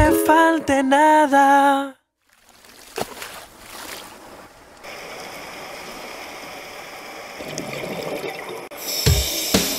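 Underwater sound picked up by the diver's camera: a steady hiss of water with a few faint clicks. Music ends about two seconds in, and a new song with drums and guitar starts near the end.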